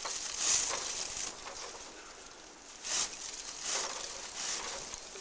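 Dry straw thatch crunching and rustling as it is worked by hand at the eaves, in about four separate strokes, the strongest about half a second in.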